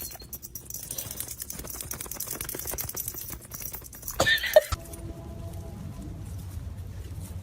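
Horse giving one short squealing call about four seconds in, over scattered clicks and knocks; the sound then cuts abruptly to a steady low hum.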